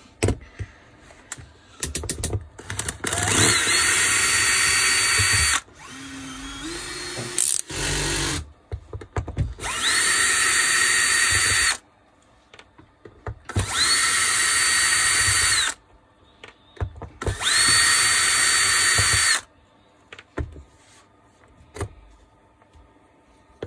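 Makita cordless drill-driver running in four bursts of about two seconds each, every one spinning quickly up to a steady high whine, as it backs out the screws holding an angle-drill gearbox cover. A shorter, slower run comes between the first two, and small clicks and rattles of parts fall in the gaps.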